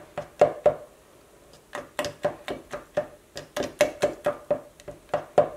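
Spatula knocking against the side of a sourdough starter container while flour and water are stirred into the starter, about four sharp clicks a second with a short pause just under a second in.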